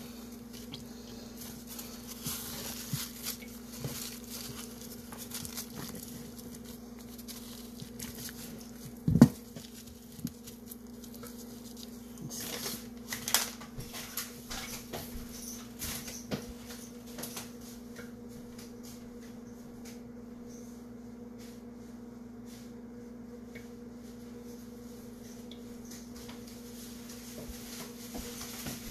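Paper towels rustling and patting against a raw beef roast as it is dried off, with one sharp knock about nine seconds in and more crinkling around thirteen seconds. Under it a steady low hum runs on, with only faint scattered ticks in the second half.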